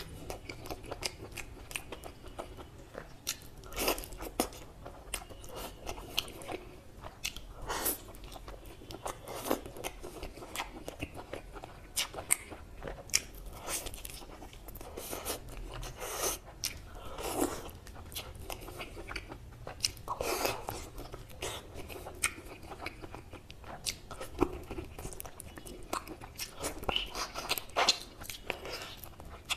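A man biting and chewing curried mutton leg meat off the bone, close to the microphone, with irregular sharp mouth clicks throughout.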